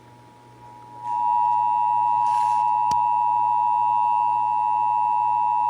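Emergency Alert System attention signal: the two-tone 853 and 960 Hz alarm comes in loud about a second in and holds steady, announcing a required monthly test. A faint tick sounds partway through.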